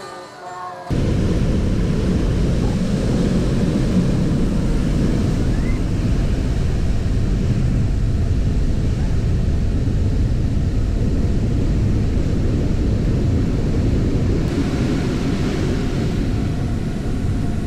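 Surf washing onto a sandy beach under a loud, steady low rumble of wind on the microphone, which starts abruptly about a second in, after the tail of guitar-backed singing. A brighter hiss of wash rises near the end.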